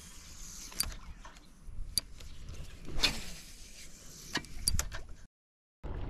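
Handling noise: a few scattered sharp clicks and knocks over a faint hiss, then the sound drops out completely for about half a second near the end.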